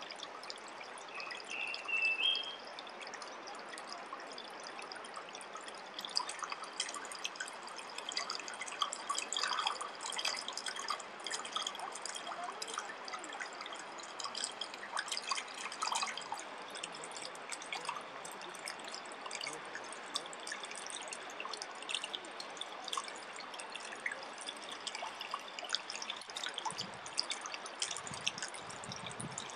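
Water trickling and dripping steadily, with many small drips and splashes. A brief high chirp rises about two seconds in.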